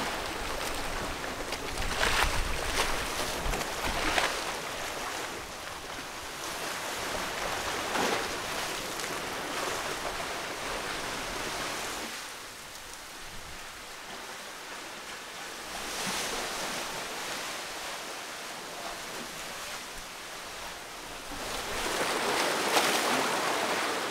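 Sea surf washing against a rocky shore, rising and falling in surges, with louder swells about 2, 4 and 8 seconds in and again near the end.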